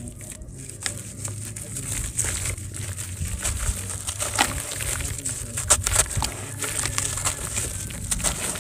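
Chunks of wet grey sand crushed and crumbling in the hands: a gritty crackle with many small sharp clicks as grains break away and drop into shallow water.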